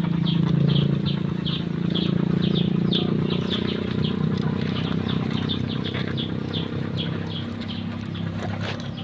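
A rapid string of short, high chirps, about two to three a second, from a small animal, over a low steady hum that fades away over the last few seconds.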